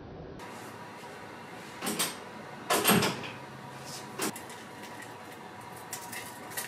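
Knocks from dishes and kitchen things being handled on a counter: one about two seconds in, a louder one about a second later, another near four seconds, then lighter clicks near the end.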